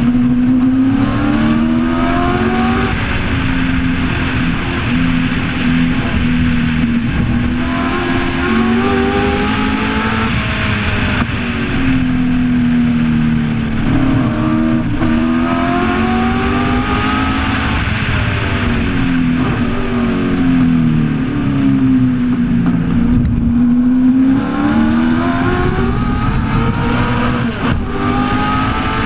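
A 1965 Shelby Cobra's Ford V8 racing engine, heard from the open cockpit at racing speed. The revs climb and fall again and again, every few seconds, through the corners, with wind noise rushing over the car.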